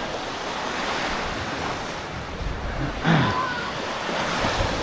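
Sea waves washing on the shore with wind buffeting the microphone, a steady rushing noise, with a brief louder sound about three seconds in.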